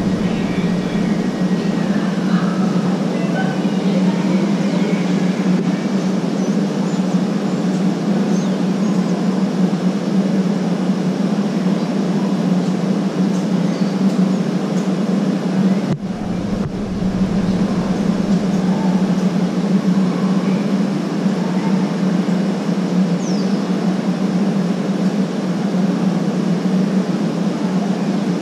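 ETR 521 "Rock" double-deck electric multiple unit standing at the platform, its onboard equipment giving a loud, steady hum, with a brief low rumble about two-thirds of the way through.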